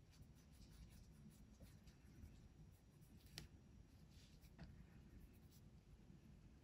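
Faint scratching of a soft-core Brutfuner colored pencil blending over paper, with a couple of light ticks about halfway through.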